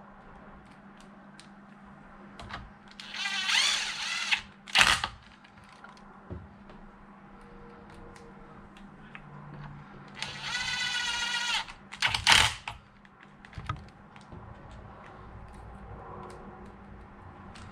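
Handheld power tool run in two short bursts, the second speeding up and winding down, each followed by a sharp click, with light handling ticks of parts and tools on a workbench.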